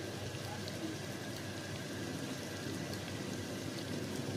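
Garlic paste and red chili powder frying in hot oil in a pan, a steady sizzle and bubbling: the first frying of a curry's spice base.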